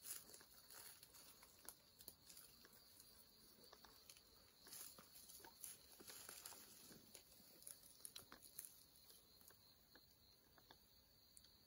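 Near silence: faint rustling and crackling of dry grass and leaf litter as a hunter creeps forward and settles down at a tree, over a steady high-pitched insect hum.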